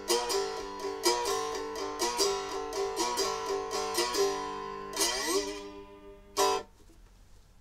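Acoustic fretless tin cigar box guitar, three strings tuned G-D-G, strummed in a steady rhythm with a slide. About five seconds in, the slide glides up and the chord rings out and fades, followed by one last short, damped strum near the end.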